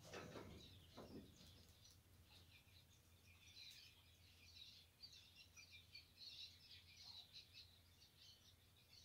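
Faint bird chirps, many short irregular calls starting about two seconds in, over quiet background noise, with a soft knock about a second in.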